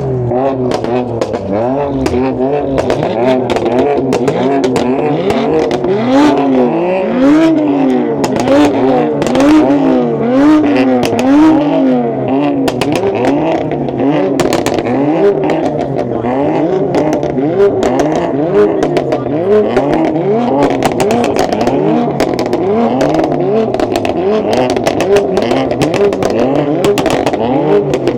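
A performance car's engine revved repeatedly in place during a soundcheck, its pitch rising and falling about once a second, with exhaust crackles and pops between the revs.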